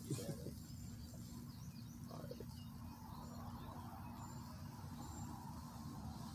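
Quiet outdoor background with faint, scattered bird chirps and insects over a low steady hum, and a brief murmur of voice near the start and again about two seconds in.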